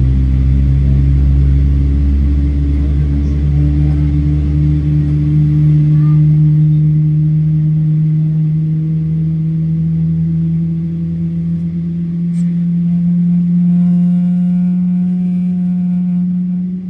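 A Boeing 777-300ER's GE90-115B turbofans starting up, heard from inside the cabin. There is a steady low drone with a tone that rises slowly, a deep rumble that fades away, and a higher whine that joins a few seconds before the end.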